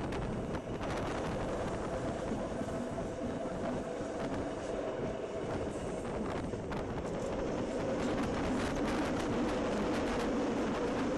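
Rhaetian Railway electric train running on the Bernina line, heard from a window of the train: steady rumble of wheels on the rails with a faint whine over it, growing slightly louder near the end.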